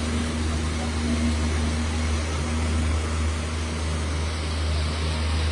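A steady, low engine drone running without a break.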